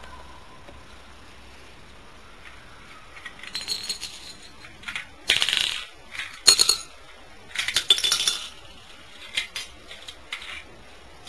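Lego bricks and seashells clattering and clicking on a tiled floor as they are handled, in several short bursts of clicks starting about three seconds in, the loudest in the middle.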